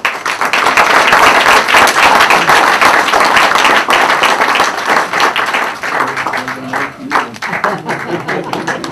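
Audience applauding. It starts suddenly as a dense burst of clapping and thins to scattered claps near the end.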